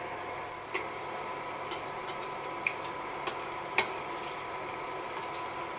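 Breaded chicken nuggets deep-frying in hot oil: a steady sizzle with a few scattered sharp pops and clicks.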